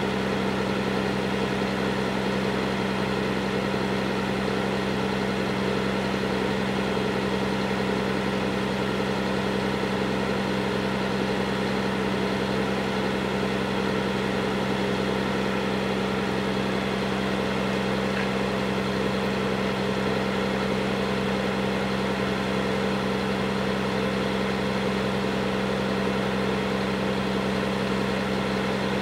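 Caterpillar DEM 50 high-reach demolition excavator's Cat C9 diesel engine idling with a steady, unchanging hum.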